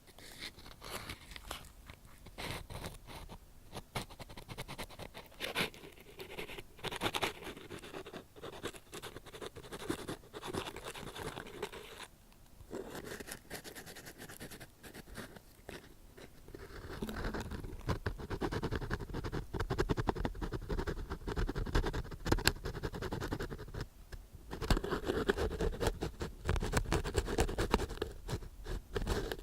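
An ear pick scratching and scraping close on a TASCAM DR-40 recorder's microphones: a dense run of small scratches with brief pauses about twelve and twenty-four seconds in. From about seventeen seconds in the strokes get louder, with a deeper rubbing under them.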